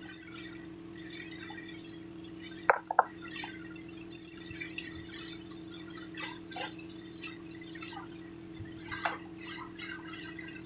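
Water splashing and dripping as a hose jet is sprayed against the soil of a gold-mining pit, over a steady low hum. A couple of sharp knocks about three seconds in are the loudest sounds, with a few lighter clicks later.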